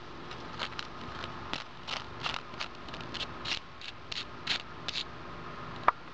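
Recovered bullet fragments, lead cores and torn copper jackets, being handled and set down on a card: a run of short, irregular light clicks and scrapes, with one sharper click near the end.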